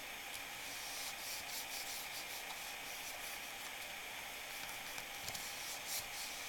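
Fingers rubbing and smoothing a paper label onto an aluminium inverter case glued with construction adhesive: a faint, irregular brushing over a steady background hiss.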